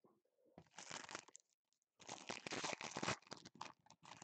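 Plastic wrapping on trading-card packs being torn open and crinkled by hand: two long tearing rips, then a run of short crackles near the end.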